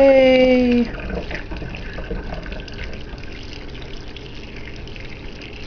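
Hot water poured from a glass measuring cup through a plastic funnel into a spray bottle, a steady pouring stream.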